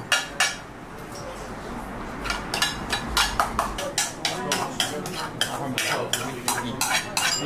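Steel ladle clinking and scraping against a stainless-steel bowl as food is scooped out and served. There are a couple of clinks at first, a quieter pause of over a second, then a rapid run of sharp metal clinks.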